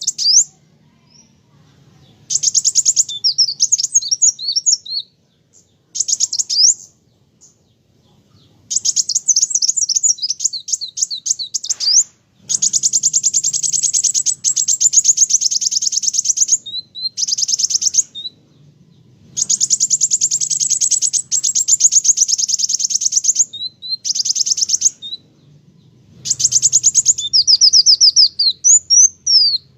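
Kolibri wulung sunbird singing vigorously: repeated phrases of rapid, very high-pitched notes and trills, each a second to a few seconds long, broken by short pauses.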